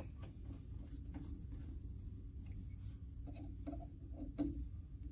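Screwdriver tightening the screws that hold an oil separator can to its mounting bracket: faint, irregular small clicks and scrapes of the tool turning, with a few louder clicks in the second half.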